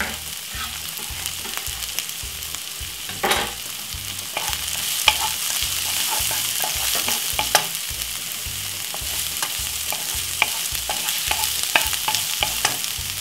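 Chopped white onion and spring onion sizzling in a little olive oil in a non-stick frying pan, stirred with a wooden spoon that clicks and scrapes against the pan. The sizzling gets louder about four and a half seconds in.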